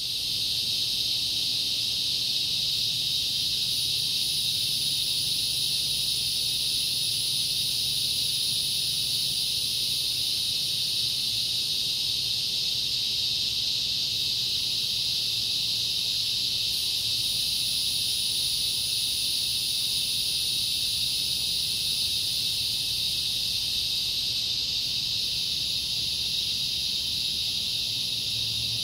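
Steady chorus of insects: a continuous high-pitched drone with no breaks.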